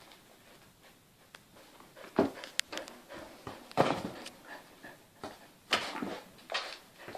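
Dog playing with a balloon: a few scattered knocks, scuffs and rubbing noises as the balloon is mouthed and pushed about, coming about two, four and six seconds in.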